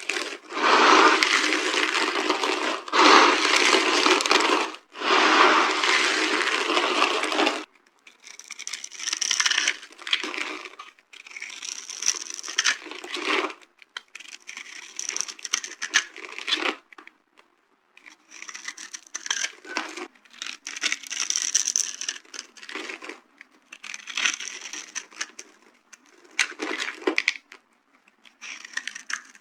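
Dry carved soap cubes being crushed, crunching and crumbling. A dense, loud stretch with two short breaks fills the first seven seconds or so; after that the crunches come in short separate bursts of a second or two with pauses between.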